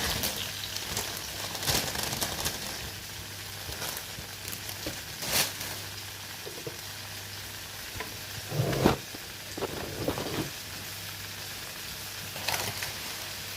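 Food sizzling as it fries in oil in a pan, stirred with a utensil that gives several short scrapes and knocks against the pan, the loudest about nine seconds in.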